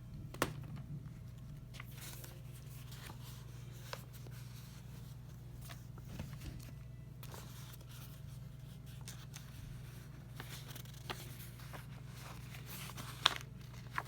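Quiet handling of notebook pages and a desk stapler being set in place: a few scattered soft clicks and rustles, the sharpest click near the end, over a steady low hum.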